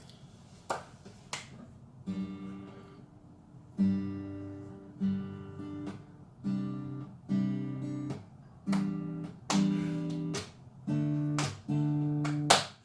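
Acoustic guitar strumming chords, starting about two seconds in with a slow, steady pattern of strums that ring and fade, a couple of light clicks before the first chord.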